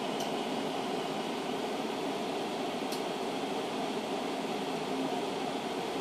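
Steady fan-like hiss of background noise, with two faint light ticks, one just after the start and one about three seconds in.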